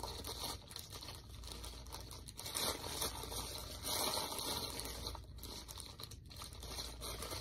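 Clear plastic bag crinkling and rustling irregularly as it is handled and worked at to get it open.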